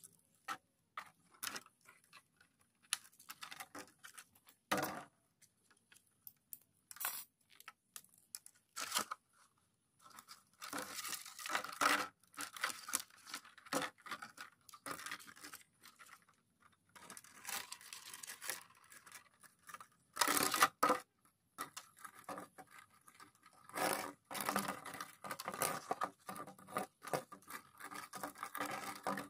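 Empty clear plastic bottles being handled while string is threaded and knotted through them: irregular crinkling, crackling and clicks of thin plastic. The sounds are sparse at first and grow much busier about a third of the way in.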